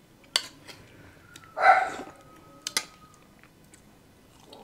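A dog gives a single short bark about a second and a half in, among a few light, sharp clicks of cutlery on a plate.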